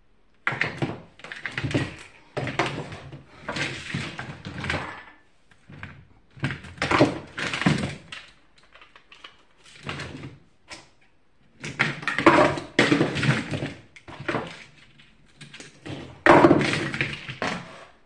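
Parts of a disassembled plastic box fan being handled on a work board: irregular clatter, knocks and rubbing of the plastic housing, motor and wiring, in bursts with short pauses, with a sharp knock near the end.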